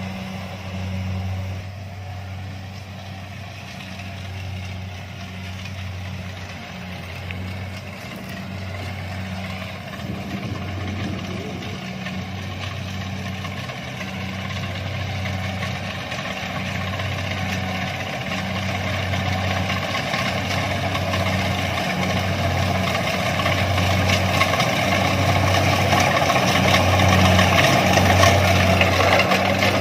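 Kubota DC-70 rice combine harvester at work, its diesel engine and threshing machinery making a steady drone that grows louder toward the end.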